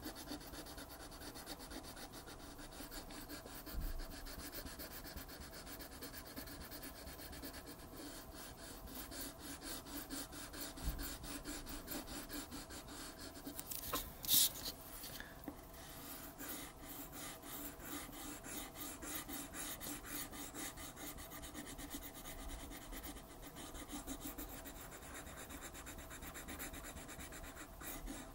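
Wax crayon rubbed back and forth on paper in quick, continuous strokes while colouring in. There are a couple of soft low thumps on the table and a brief, louder scrape about halfway through.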